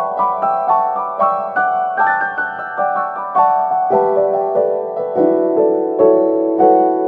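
Background piano music: a steady run of single notes, several a second.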